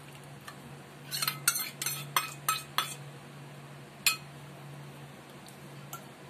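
A spoon clinking against a metal kadai as whisked yogurt is spooned into the curry and stirred: a quick run of about six clinks about a second in, then single clinks near 4 s and near the end, over a steady low hum.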